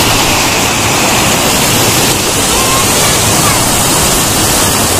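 Fast-flowing floodwater churning white and pouring over a ledge: a loud, steady rush.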